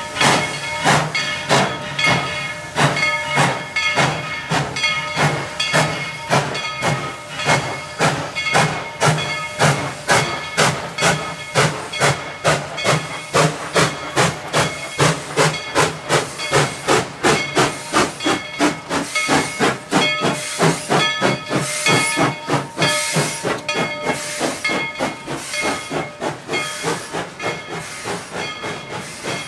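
Tweetsie Railroad's steam locomotive #190, a narrow-gauge Baldwin 4-6-0, working under steam with a steady run of exhaust chuffs, about two a second, picking up pace a little and growing quieter near the end.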